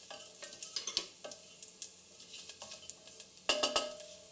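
Cumin seeds and whole spices sizzling in hot ghee in a stainless steel pressure cooker, with scattered crackles and a wooden spatula stirring and scraping the pot. About three and a half seconds in there is a brief louder clatter of the spatula against the metal pot.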